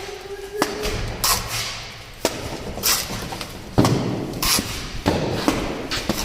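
Irregular knocks and thuds of construction work: about eight sharp impacts over six seconds, unevenly spaced.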